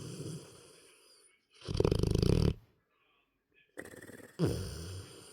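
Snoring in a deep sleep, with a vibrating sound on each breath. A softer, fading breath opens, a loud snore comes about two seconds in, and another breath starts near the end.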